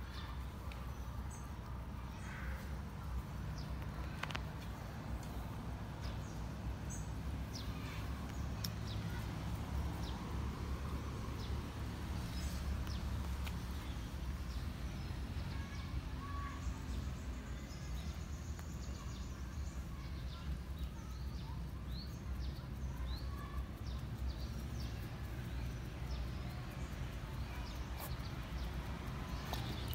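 Outdoor ambience: a steady low rumble with short, high chirps scattered through it.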